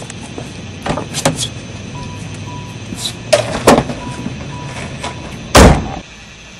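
Car door being opened and a person climbing into the driver's seat with clicks and knocks, then the door slammed shut with a heavy thud about five and a half seconds in. A faint beep repeats while the door is open.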